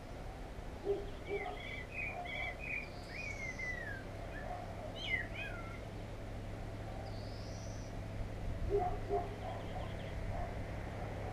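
Daytime birdsong: small birds chirping and warbling in quick gliding phrases, and a low hooting call in short pairs about a second in and again near the end, over a steady low background rumble.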